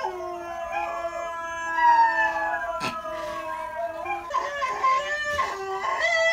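Dogs howling from a howling video played on a phone, several long howls overlapping and gliding slowly in pitch, used to coax a puppy into howling. From about four seconds in the howls come shorter and choppier.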